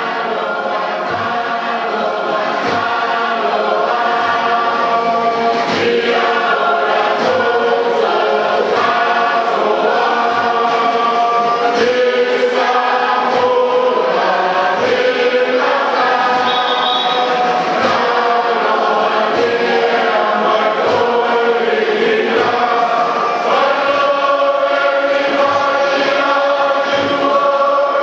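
Tokelauan fatele song: a large group of adults and children singing together, over a regular beat of sharp strikes.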